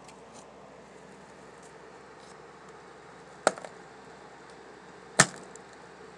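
Two sharp clicks about a second and three quarters apart, the first followed by a couple of fainter ticks, over a faint steady hiss.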